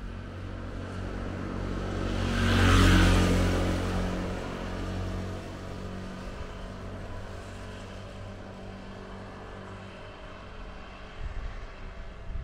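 A motor vehicle passes close by, its engine sound swelling to a peak about three seconds in, then fading. The pitch drops as it goes past.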